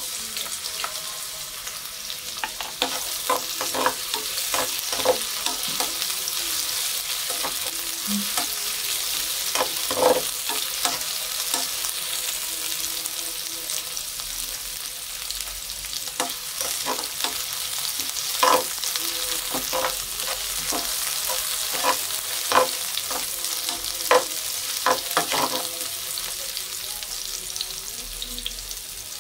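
Chopped onion and garlic sizzling steadily in hot oil in a pot, with a metal slotted spatula clicking and scraping against the pan now and then as they are stirred.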